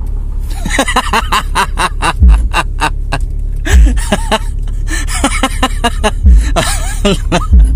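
A hip-hop beat played loud through a pair of 15-inch Q-Mobile car subwoofers driven by a Class D monoblock amplifier. Deep bass hits come every second or two over steady heavy bass, with crisp percussion and a vocal line on top.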